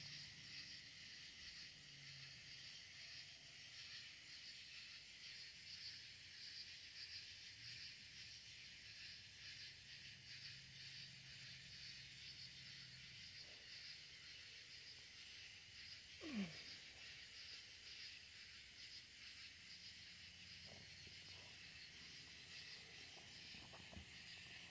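Faint, steady chorus of crickets and other night insects, a continuous high trill. About 16 seconds in there is one short sound that glides quickly downward.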